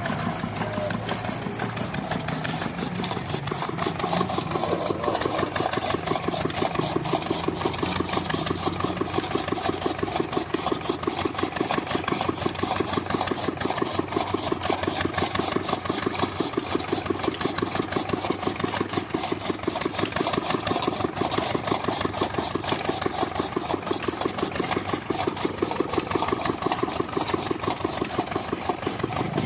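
Engine-driven chaff cutter running steadily with a fast, even beat.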